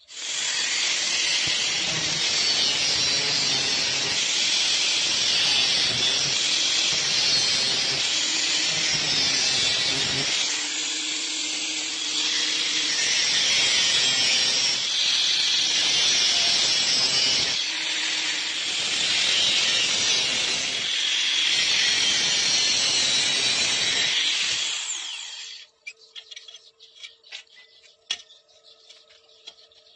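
Angle grinder cutting steel: a loud, continuous high grinding that eases briefly twice and stops suddenly near the end.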